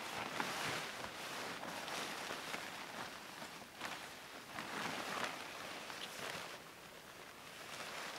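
Tent fabric rustling and swishing as it is pushed up from underneath on the centre pole, in uneven surges with a few faint clicks.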